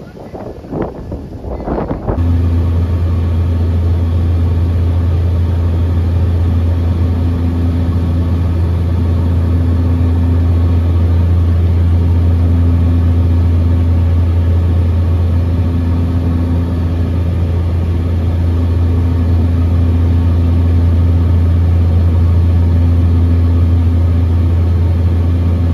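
Wind buffeting the microphone, then about two seconds in a loud, steady drone of a propeller aircraft's engines heard from inside the cabin takes over. It has a strong low hum and a higher tone that swells and fades every couple of seconds.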